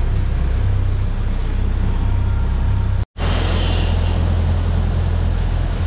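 Boat engine droning steadily under way at trolling speed, with a hiss of rushing water and wind. The sound cuts out for an instant about three seconds in, then comes back slightly stronger.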